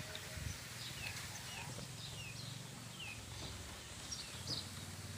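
Birds chirping in the background, short falling notes repeated a few times a second, over a low steady hum.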